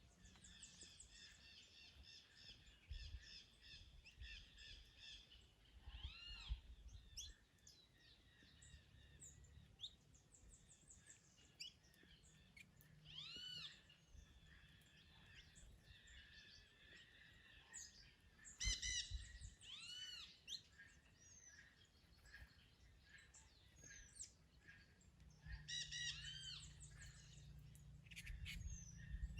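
Songbirds chirping and singing faintly: quick runs of repeated high chirps, with arched whistled notes now and then.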